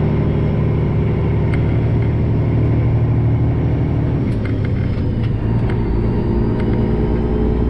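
Freightliner Classic XL semi-truck's diesel engine running steadily, heard from inside the cab as the truck moves slowly. Its pitch shifts slightly about four seconds in, with a few light clicks as the gear lever is worked.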